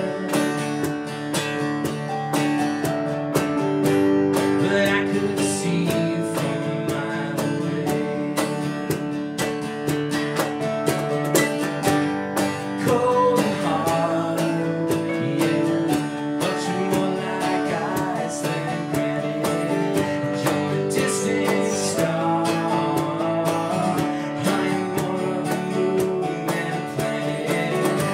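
Live band music with no lead vocal: a strummed acoustic guitar with electric bass and a Nord Electro 6D keyboard, playing steadily.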